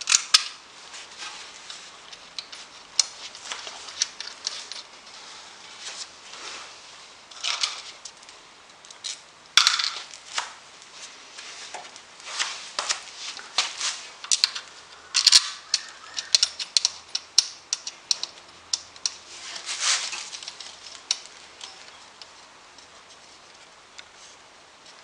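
Irregular small metallic clicks, taps and scrapes of bolts and spacers being fitted by hand to a plastic radiator cooling fan and water pump pulley. They come in clusters and die away near the end.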